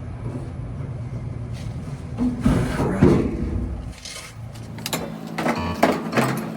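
Knocks and scraping from hands-on work inside a dryer, then background music with a steady beat comes in about five seconds in.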